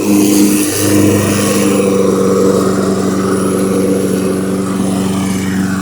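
Snapper push mower's engine running steadily on its first run after a deck rebuild, while the self-propelled drive is tested.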